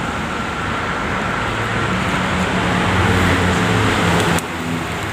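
Road traffic noise: vehicles running on a road close by, swelling about three seconds in, then dropping suddenly near the end.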